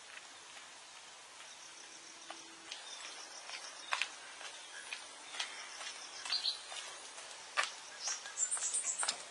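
Rural outdoor ambience: insects trilling in a high pulsing buzz, with scattered sharp clicks and taps, and a burst of high chirps near the end.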